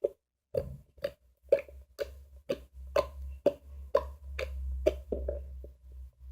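Freshly made glue-and-borax slime being squeezed and worked by hand, giving wet squishy pops about twice a second.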